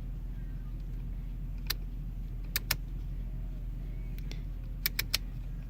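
A few sharp clicks, singly and in quick twos and threes, from the buttons of a car's HVAC control head being pressed while it fails to respond. A steady low hum runs underneath.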